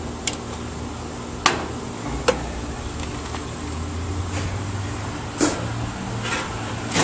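Salvaged metal parts clicking and clinking as they are handled and tested with a magnet: about six sharp clicks over a steady low hum.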